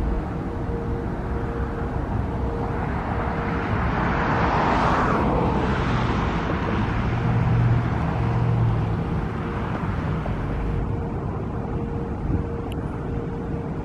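A vehicle passing close by over a steady outdoor rumble: a hiss swells to a peak about five seconds in and then fades, with a low hum strongest a little later.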